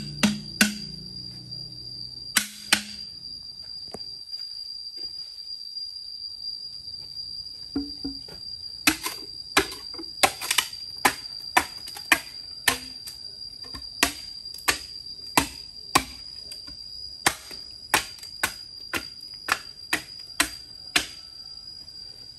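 Sharp knocks, a few near the start and then a run of about twenty, roughly two a second, from about eight seconds in, over a steady high-pitched tone.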